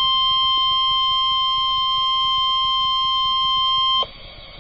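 Emergency Alert System attention tone: one long, steady, high electronic tone that cuts off about four seconds in, leaving faint hiss on the line.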